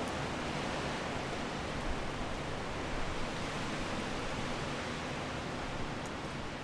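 Strong wind blowing steadily, a dense even rush with slight swells in level.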